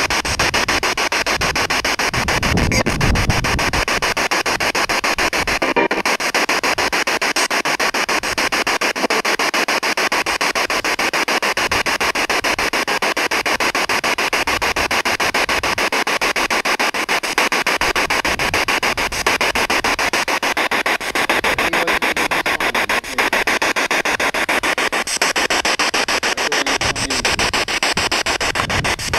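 Radio static from a ghost-hunting spirit box sweeping through stations: a steady hiss chopped rapidly many times a second. There is a brief low rumble about three seconds in.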